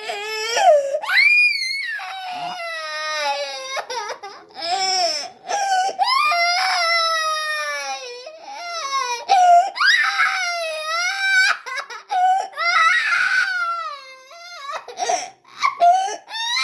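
A person crying in long, high wails that slide up and down in pitch, broken by short pauses for breath.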